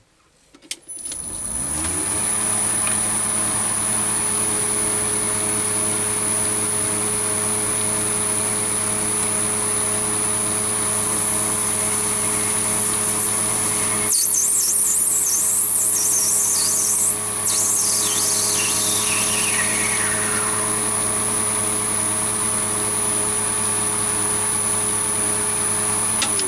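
Chinese mini lathe spindle motor spinning up from rest, then running steadily with a hum and a high whine while an acetal block turns in the four-jaw chuck. About halfway through, the turning tool cuts the plastic, adding a hissing scrape that fades out over several seconds. The motor starts winding down right at the end.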